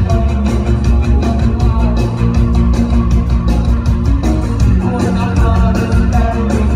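Live rock band playing: a singer's voice over bass guitar and a steady drum beat.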